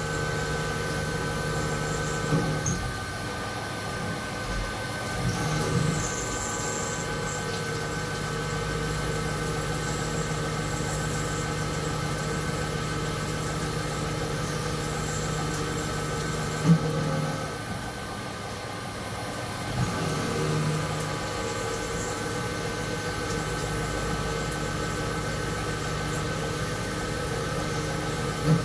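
2006 Haas VF-3 vertical machining center milling a metal block with an end mill: a steady machine hum with several held whining tones, broken by a few short, sharper sounds, the loudest about two-thirds of the way through, where the low tone drops away for a few seconds.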